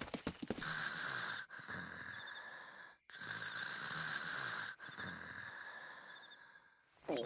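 Cartoon stomach growl sound effect: a long, noisy, hissing growl that swells and fades twice, broken briefly about three seconds in.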